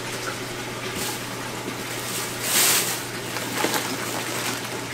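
Steady rush of running water with a low hum from the aquarium pumps and filtration of a fish room. A short, louder burst of noise comes about two and a half seconds in.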